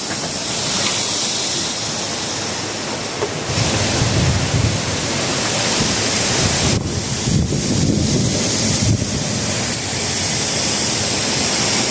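A big gust of hurricane wind blowing hard over a steady hiss of wind and rain. Between about four and nine seconds in, the gusts buffet the microphone with a heavy low rumble.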